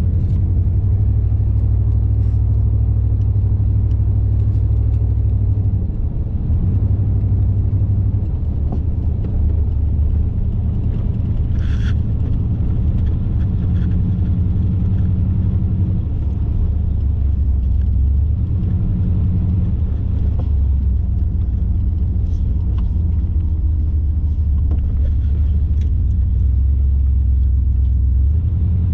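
Car driving: a steady low engine and road rumble that shifts in pitch a few times as the speed changes, with one brief sharper sound about twelve seconds in.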